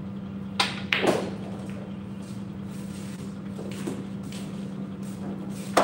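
A pool shot: the cue tip strikes the cue ball, then less than half a second later a ball clacks into another ball, with a brief ringing rattle after it. A steady low hum runs underneath, and another sharp click of ball on ball comes at the very end.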